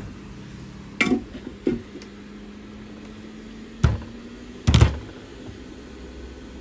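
Hot-air heat gun blowing steadily with a faint hum, while a metal blade or tweezers clicks and knocks against the phone's frame a few times, loudest near the fifth second.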